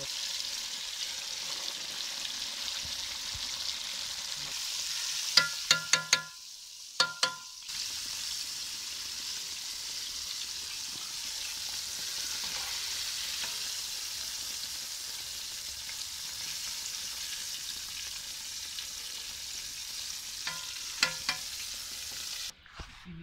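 Breaded chicken fillets deep-frying in hot oil in an aluminium pot, a steady sizzle. Metal utensils clink against the pot in short bursts, a few times about five to seven seconds in and again near the end.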